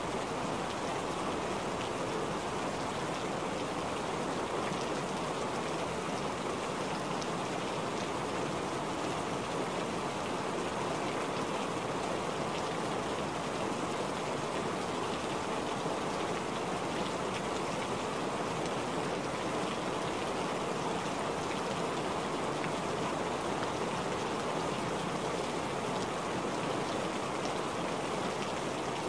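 Steady rain falling: an even hiss of rain with scattered drop splashes.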